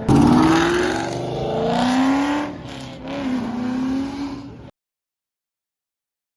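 Car engine accelerating hard from the start, its pitch climbing in repeated rising sweeps broken by a couple of brief dips like gear shifts. The sound cuts out abruptly to total silence a little over four and a half seconds in.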